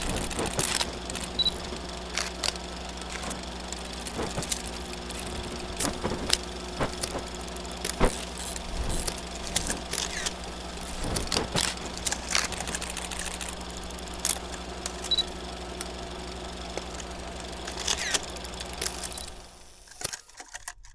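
Vintage 8mm film sound effect: a steady low hum under hiss, with irregular clicks and pops of film crackle, dying away near the end.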